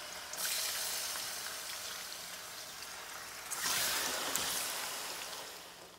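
Raw chicken pieces sizzling in hot oil in a stainless steel pan. The frying hiss surges about half a second in and again around three and a half seconds as more pieces go in, then dies down near the end.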